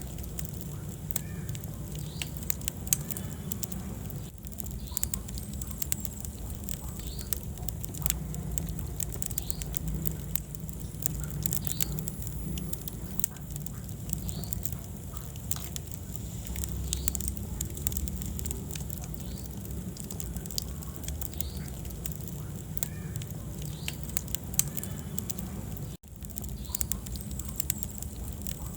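Wood fire burning in a fireplace: a steady low rumble of flames with dense, irregular crackles and sharp pops throughout. The sound cuts out for an instant near the end.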